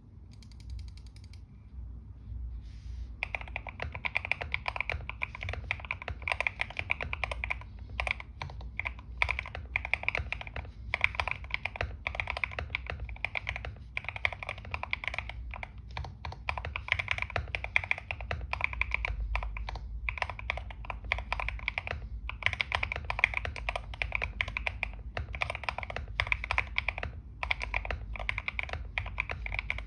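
Typing on a GMK67 mechanical keyboard with Gateron Smoothies linear switches and dye-sub PBT XDA keycaps, tape-modded and filled with Poron case foam: fast, continuous keystrokes with short pauses, starting about three seconds in.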